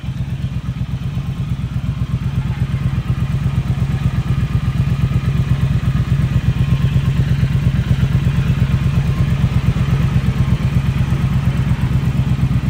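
Triumph Speed Twin 1200's parallel-twin engine idling through a Zard full-system ceramic 2-into-1 exhaust. It is a steady, low, evenly pulsing beat that grows a little louder over the first few seconds.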